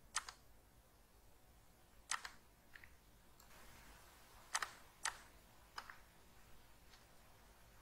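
Computer mouse clicking: about eight short, sharp clicks, some in quick pairs, spread over several seconds in a quiet room.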